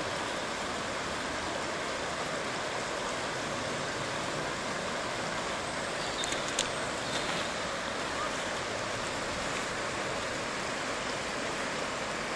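Shallow mountain river flowing steadily over a stony bed, an even water noise. A few short clicks stand out a little past the middle.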